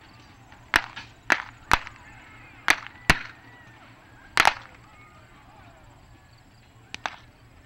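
Seven sharp gunshot cracks, blank rounds fired from revolvers during a mock train robbery. Six come fast and irregularly in the first four and a half seconds, and one more follows near the end.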